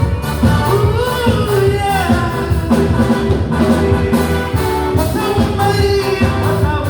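Live band music with a steady beat, bass and drums under a melody line.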